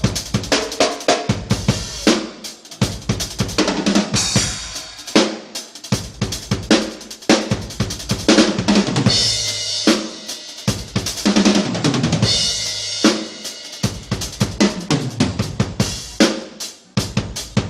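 Acoustic drum kit played at a sound check: dense strokes on kick drum and snare, with cymbal crashes ringing out every few seconds.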